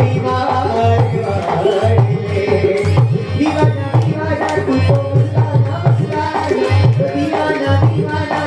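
Music led by a quick, busy hand-drum beat, with a melody line above it.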